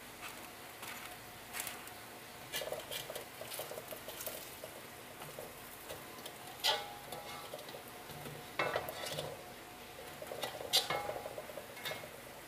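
A slotted metal spatula scrapes and clinks against a wok as fried sticky-rice cakes are pushed and lifted from shallow oil, with a light sizzle underneath. The knocks come irregularly, and the sharpest are about two-thirds of the way through and near the end.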